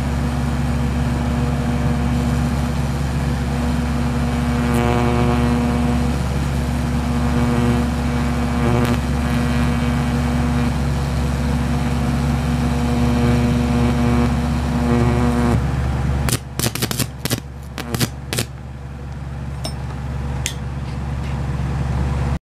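High-voltage electric arc buzzing steadily as it burns into a pumpkin stem, a loud hum of steady pitch. It stops about 15 seconds in, followed by a quick run of sharp snaps.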